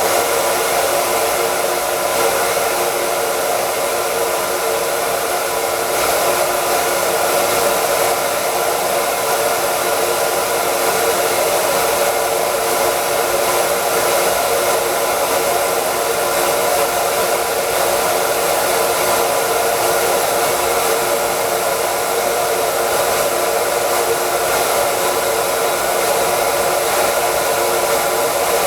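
Hair dryer running steadily: a constant rush of blown air over a steady motor hum, with no change in speed.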